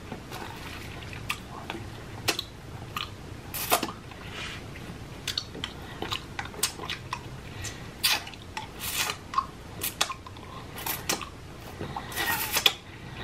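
Close-miked mouth sounds of a person eating a chewy candy: irregular wet smacks, clicks and chewing.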